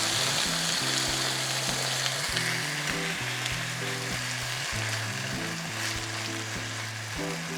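Chopped leeks sizzling as they fry in hot vegetable oil in a pan, a steady hiss.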